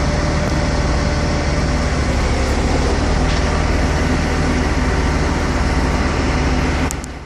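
Diesel engine of a Taylor heavy lift truck running steadily, heard from the operator's seat; the engine sound drops off sharply near the end.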